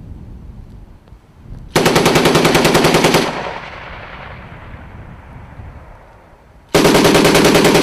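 Machine gun firing two long bursts of automatic fire: the first starts about two seconds in and lasts about a second and a half, the second starts near the end and lasts about a second. Each burst leaves an echo that dies away over a second or more.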